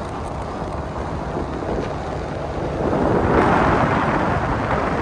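Car driving on a snowy mountain road: steady road and wind rush, swelling louder about three seconds in.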